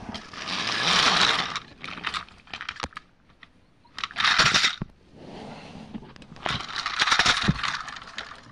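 Plastic toy train engine and coaches clattering and knocking as they tip and tumble off a bed. Three bursts of hissing noise come with them, the middle one short.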